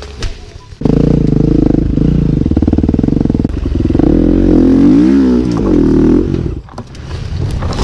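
Dirt bike engine running loud and close, starting about a second in. Its revs rise and fall repeatedly in the middle, and it drops away sharply near the end.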